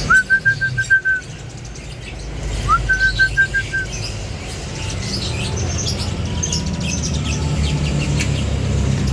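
Caged birds in a bird shop: one bird gives a loud call of about seven quick, even notes on a single pitch, each run opening with a short upward slide, twice about three seconds apart, while many other birds chirp faintly and high throughout.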